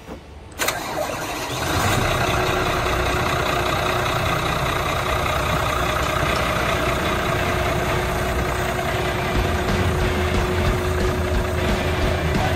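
The twin inboard engines of a Formula 37 PC cruiser idling steadily. The sound swells up about one and a half seconds in and then holds even, with a steady hum through it.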